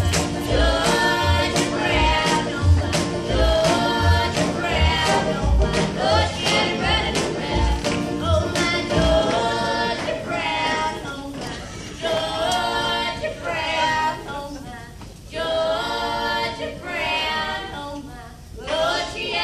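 Live bluegrass band: several voices singing in harmony over acoustic guitars and banjo. A regular low beat thumps along under it for the first half and drops out about nine seconds in, leaving voices and strings in short phrases.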